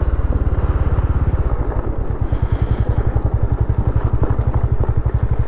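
Bajaj Dominar 400's single-cylinder engine running, its exhaust beating out an even, steady train of pulses.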